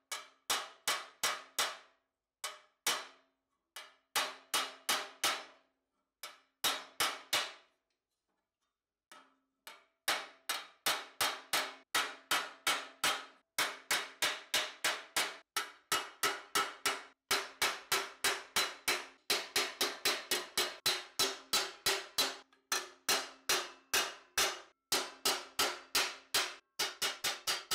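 Hand hammer striking a thin 2 mm steel helmet face plate on a stake, raising a spiral design. Quick, even blows come about three a second, each with a short metallic ring. The blows pause briefly about eight seconds in, then run steadily.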